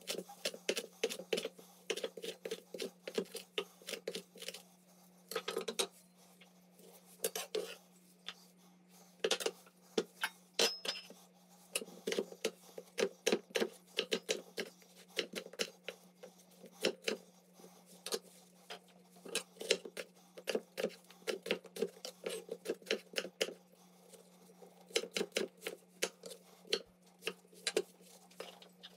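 Rapid, irregular clinks and taps of cutlery and dishes being handled, over a steady low hum.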